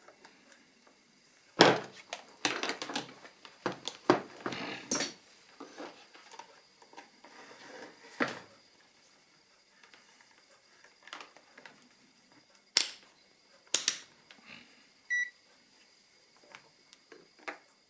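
Bench handling noise of small objects and test leads: scattered knocks, clicks and rattles, busiest in the first few seconds and again near the end. One short electronic beep about 15 s in.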